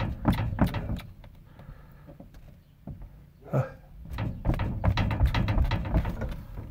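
Wooden subfloor above a crawlspace thumping and creaking under a person bouncing on it, a run of irregular knocks that thins out in the middle and picks up again in the second half. The floor is soft and bouncy: its joists sag between supports.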